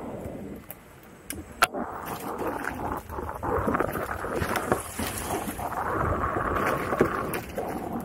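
Electric unicycle rolling along a trail, its tyre running over wooden boardwalk planks and dirt, with a couple of sharp clacks about a second and a half in.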